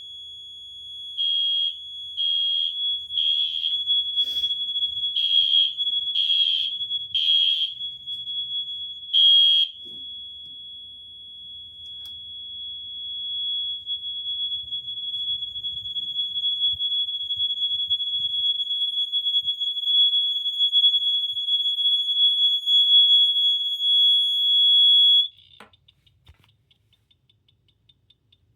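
Two fire alarm mini horns sounding together. A Siemens mini horn gives a steady, piercing smoke-alarm-like tone on continuous, and a Wheelock MIZ mini horn buzzes in the code-3 temporal pattern (three short blasts, then a pause) until it stops about ten seconds in. The continuous tone cuts off abruptly near the end and is followed by faint rapid clicking from the horn after it has finished sounding.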